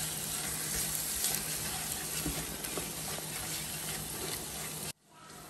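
Tomatoes, onions and masala sizzling in a pot while a spatula stirs and scrapes through them, with small clicks of the spatula. The sound cuts off abruptly near the end.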